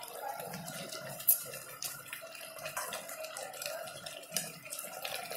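Steel ladle stirring sugar syrup around fried balushahi in a stainless steel pot: syrup sloshing and squelching, with scattered clinks of the ladle on the pot and one sharp clink about a second in.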